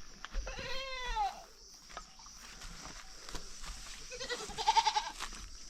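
Goat bleating twice: a short call falling in pitch about a second in, then a louder, wavering bleat near the end.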